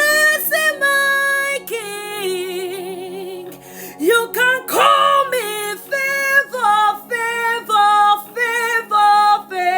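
A woman singing a gospel song, with held notes, vibrato and vocal runs, over a soft sustained musical backing.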